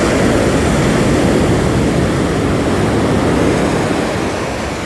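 Ocean surf: waves breaking and the foaming wash rushing up the beach close by, a loud, steady rush that eases slightly near the end.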